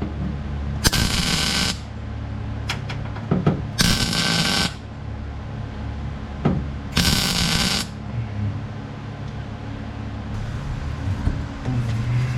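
Welder laying three short tack or stitch welds on a car's sheet-metal floor pan, each a crackling burst under a second long, about three seconds apart.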